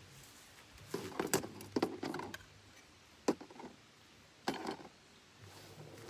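Clinks and knocks of cooking utensils and gear being handled: a cluster of clatters about a second in, then single sharp knocks at about three and four and a half seconds.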